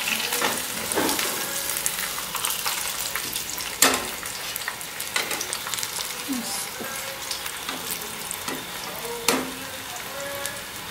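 A battered onion flower deep-frying in hot oil, the oil sizzling and bubbling steadily. A few sharp taps of a wire skimmer in the pan, the loudest about four seconds in and another near the end.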